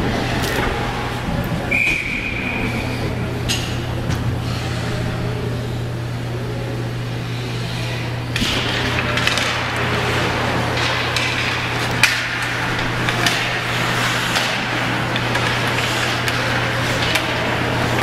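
Ice hockey game sounds in an arena: skates scraping and sticks knocking on the ice over a steady low hum, busier from about eight seconds in. There is a short steady high tone about two seconds in, and a sharp crack at about twelve seconds, the loudest moment.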